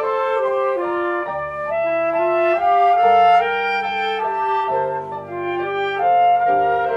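Chamber music for saxophone, clarinet, flute and piano: several wind instruments play interweaving melodic lines, note by note, over lower held notes.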